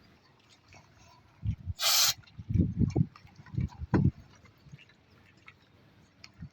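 A short hissing spray burst about two seconds in, among several dull knocks and small clicks from parts and tools being handled.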